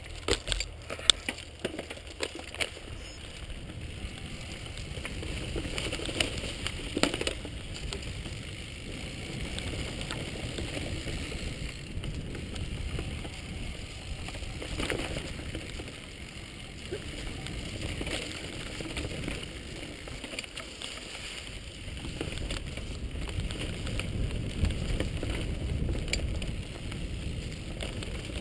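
Mountain bike rolling fast over a dirt forest trail, heard from a camera riding along: a continuous rumble of tyres on dirt with sharp knocks and rattles over bumps, several near the start and a few later.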